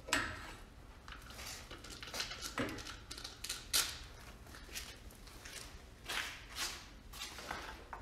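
Hands working at the neck of a fiberglass water softener resin tank: irregular scraping and rustling handling noises, with one sharp click about four seconds in.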